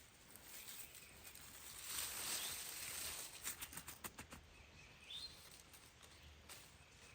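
Quiet outdoor ambience: a soft rustling swell, then a few small clicks, and a single short rising bird chirp about five seconds in.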